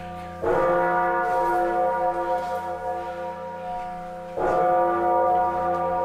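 Hosanna, the 7.5-ton John Taylor & Co. bourdon bell cast in 1935, rung full circle: two strokes about four seconds apart. Each stroke is a clang that rings on with many long-held tones over a steady low hum.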